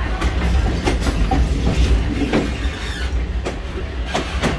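Train wheels rolling on the rails: a steady low rumble with irregular sharp clicks from rail joints, and clicks near the end as the car passes over a track switch.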